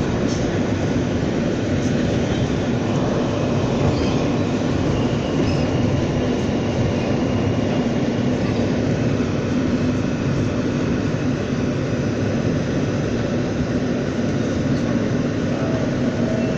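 Running noise heard inside an R160 subway car as it travels through the tunnel and into a station: a steady rumble of wheels and running gear with a constant low hum and a faint high whine at times.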